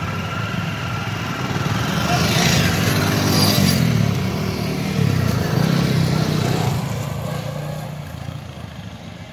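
Several motorcycles pulling away one after another, engines revving up as each accelerates past, then fading as they ride off near the end.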